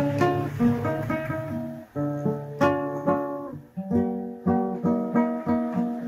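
Nylon-string classical guitar playing chords, plucked and strummed, with short breaks about two and four seconds in.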